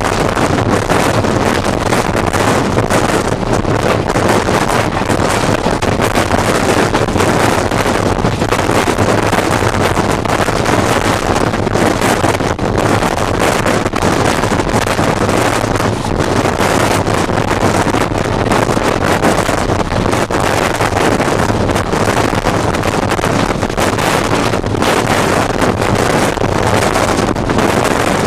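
Deccan Queen passenger train running at about 105 km/h, heard from beside a coach window: a loud, steady rush of wind on the microphone over the rumble of the coach's wheels on the rails.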